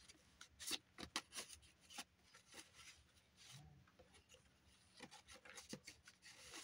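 Faint rustling and light scattered taps of paper and card being handled as a paper tag is worked into a journal page pocket.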